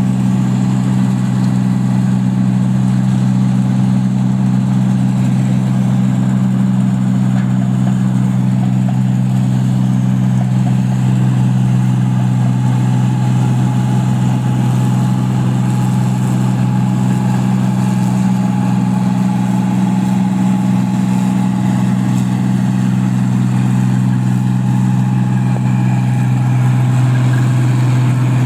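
Engine of a paddy (rice) machine running loudly and steadily at one constant pitch, with no change in speed.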